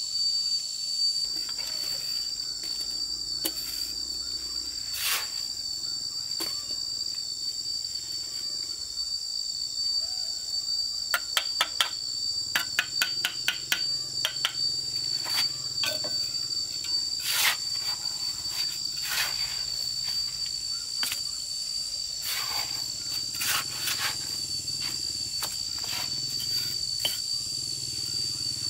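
Steady high-pitched insect drone throughout, with bricklaying noises over it: sharp taps of a hammer and trowel setting hollow clay bricks into cement mortar, scattered irregularly, with a quick run of taps about halfway through.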